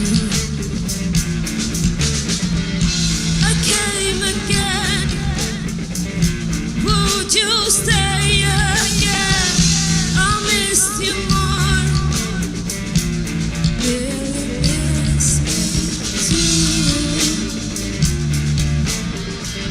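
Rock band playing with electric guitar, bass and drums on a steady beat; a wavering high melodic line comes in a few seconds in and fades after the middle.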